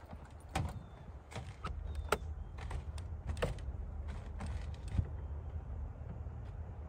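Clicks and knocks of a man climbing the metal rear steps of a truck camper and handling its entry door, several sharp ones in the first few seconds and fewer after, over a low steady rumble.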